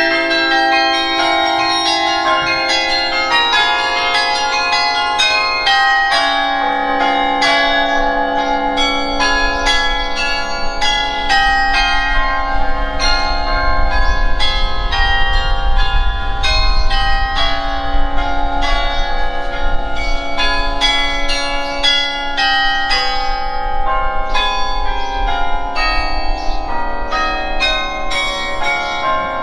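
Carillon bells being played: a quick succession of struck notes at many pitches, each ringing on and overlapping the next, over longer-held lower bells. A low rumble runs underneath from about nine seconds in until near the end.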